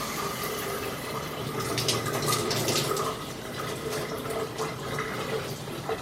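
Water running steadily from a tap on newly installed bathroom plumbing, turned on to test the new fittings for leaks, with a louder, splashier stretch about two seconds in.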